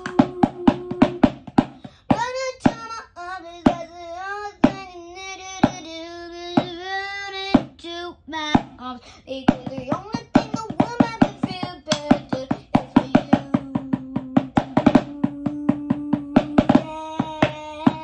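Wordless singing, a melody carried on long gliding notes with a long held note in the second half, over a steady, fast rhythm of sharp hand taps.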